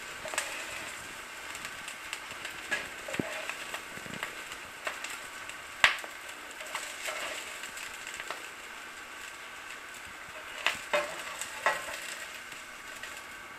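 Chickpea and potato patties sizzling as they shallow-fry in oil in a frying pan, with a steady hiss. A spatula clicks and scrapes against the pan now and then as the patties are turned and lifted out, the sharpest click about six seconds in.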